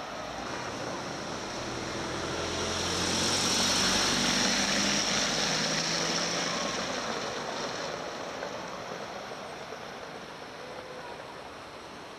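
A car passing over a cobbled road: engine and tyre noise swell to a peak about four seconds in, then fade slowly as it drives away.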